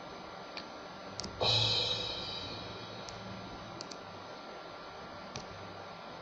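One crash cymbal hit from a drum-machine sample of an 18-inch Sabian crash, about a second and a half in, ringing out and fading over about a second and a half. A few faint short clicks come before and after it.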